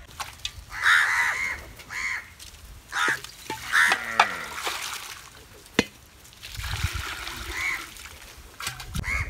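Crows cawing several times, over water being poured from a clay pot into a metal basin and splashing as pieces of raw skipjack tuna are washed by hand.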